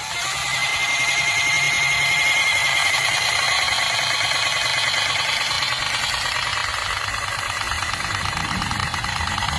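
A power tool's motor running steadily with a high whine, expanding refrigeration tubing; it stops just after ten seconds.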